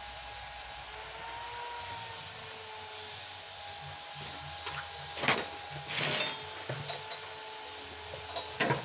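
Hand work on a small water pump engine: a few sharp knocks and a short clatter, the loudest about five seconds in and again near the end, over a steady faint hum.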